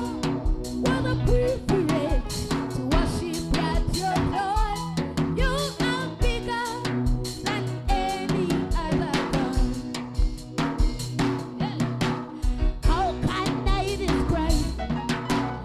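Live gospel worship music: a drum kit with snare and bass drum keeps a steady beat under a sustained bass line, with singing and melodic runs over it.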